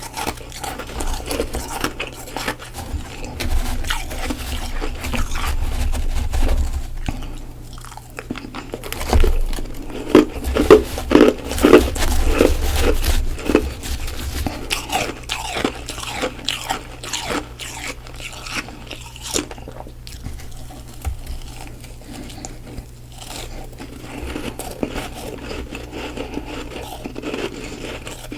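Close-miked crunching of freezer frost being bitten and chewed: a dense, irregular run of hard crunches, loudest and thickest about a third of the way in, then thinning to softer, scattered chewing crunches.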